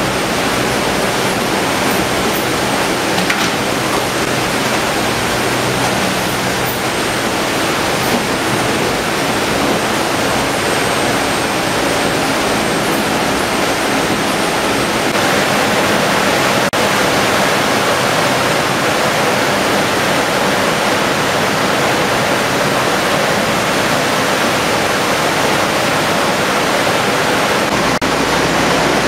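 Fish-processing line: water rushing through the chutes and conveyors together with the machinery's running, a loud, steady rushing noise with a thin high whine that stops near the end.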